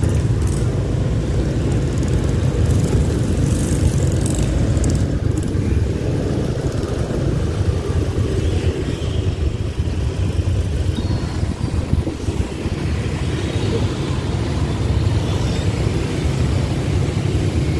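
Riding a motor scooter through city traffic: a steady low rumble of wind on the microphone mixed with the scooter's engine and the motorbikes around it.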